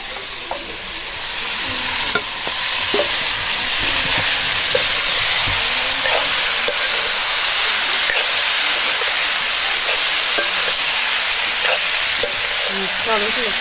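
Vegetables sizzling as they stir-fry in a metal wok, with a steady hiss and a metal ladle scraping and clinking against the pan as they are turned.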